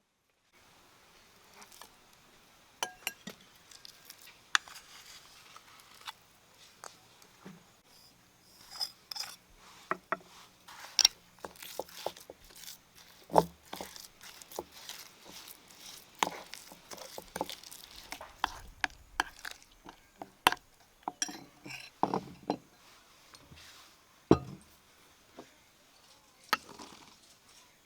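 Irregular clinks and knocks of dishes and utensils being handled during food preparation, with a few sharper knocks standing out.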